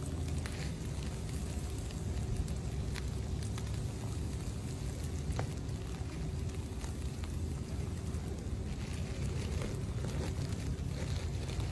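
Steady low rumble, like wind on the microphone, with a faint crackling rustle and a few small clicks.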